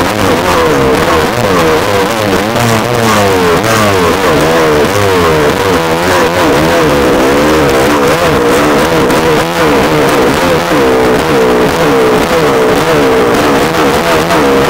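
Dirt bike engine running close up, revving up and down as the rider works the throttle through snow.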